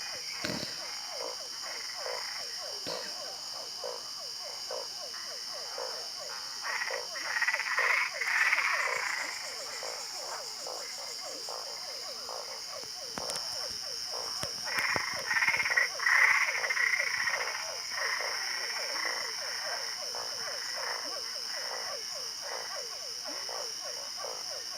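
Frogs calling: a dense run of rapid, repeated croaking pulses, swelling louder in two bouts about a third of the way in and again past the middle, over a steady high-pitched whine.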